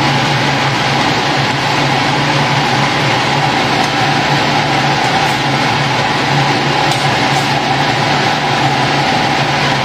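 Steady, loud machine hum with a low drone and a higher tone underneath, unchanging throughout, with a few faint clicks of metal tongs against the stainless pot.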